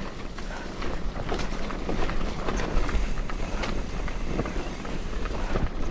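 Mountain bike riding down a muddy dirt trail: wind rumble on the camera's microphone, with tyre noise and a steady run of sharp clicks and rattles from the chain and frame over bumps.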